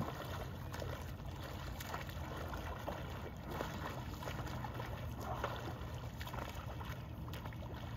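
Small irregular splashes of lake water around a paddle board and its paddle, over a steady low rumble.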